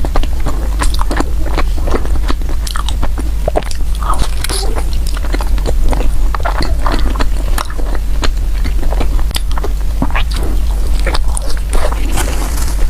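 A person biting and chewing soft bread close to the microphone, with many small irregular wet clicks and smacks over a steady low hum.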